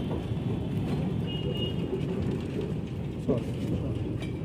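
Low, steady rumble of an old wooden-bodied tram car rolling slowly on its steel wheels along the rails as it is moved out of its berth.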